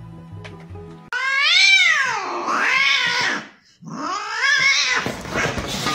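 Two long, drawn-out cat meows, each rising then falling in pitch, with a short break between them: the sound played to call a cat, to see whether it comes running.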